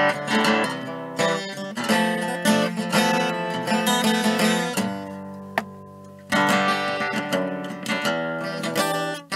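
Background music: an acoustic guitar plucked and strummed. It fades away about five seconds in, then comes back suddenly a little past six seconds.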